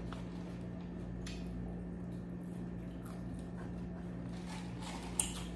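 Quiet room tone with a steady low hum, broken by a few faint small clicks and one sharper click near the end, from people eating and handling a cookie box.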